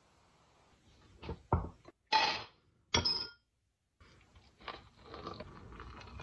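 Dry dog kibble poured into bowls in two short, loud bursts, after a few light clicks. Then a softer, steady pour of water from a kettle onto kibble in a glass bowl.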